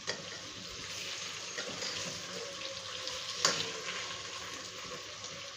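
Thinly sliced potatoes sizzling in oil in a pan as they are mixed with a spoon, with a sharp click of the spoon against the pan at the start and a louder one about three and a half seconds in.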